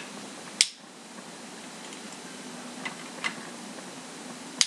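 A few short clicks over low room noise: a sharp one about half a second in, two fainter ones past the middle, and another sharp one near the end.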